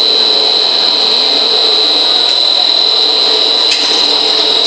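Starch sheet extruder of a 3D snack pellet line running: a loud, steady machine noise with a constant high-pitched whine.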